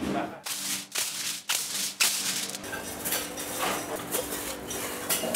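Aluminium foil crinkling and rustling as it is handled and pressed over the mouths of clay tangia pots: a string of sharp rustles, several about half a second apart early on, then denser.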